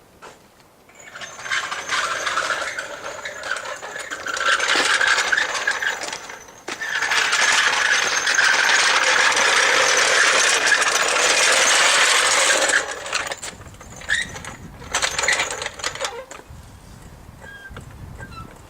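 Ridgid 18 V brushless half-inch cordless impact wrench hammering on a fastener in two long runs, then a few short bursts.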